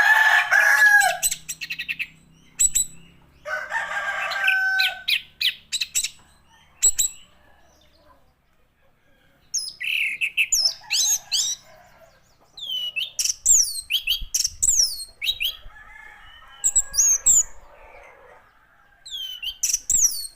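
Orange-headed thrush singing in bursts of quick, sharp notes, many of them sweeping downward, with short pauses between runs. Two longer, rougher calls come in the first few seconds.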